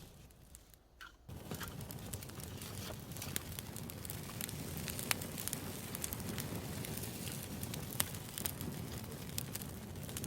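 Campfire crackling: a steady low rumble with scattered sharp pops, starting up after a brief quieter moment at the beginning.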